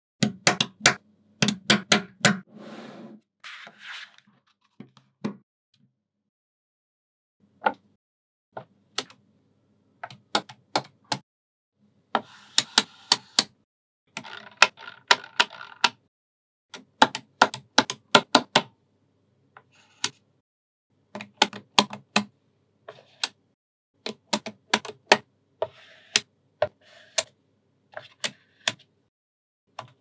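Small magnetic balls clicking sharply as they snap together, in quick clusters of clicks with short pauses between. Softer rattling of balls runs among some of the clusters.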